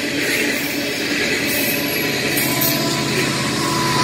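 Freight train of open-top hopper cars rolling past, with the steady rumble and rattle of steel wheels on rail. Near the end the low hum of an approaching BNSF diesel locomotive's engine grows in.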